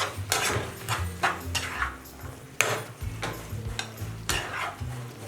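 A ladle stirring vegetables in a cooking pan, knocking and scraping against the pan a few times a second.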